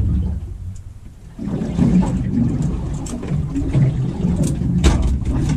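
Low rumbling wind-and-water noise on a small boat drifting at sea. It drops away for about a second near the start, and a few sharp clicks come near the end.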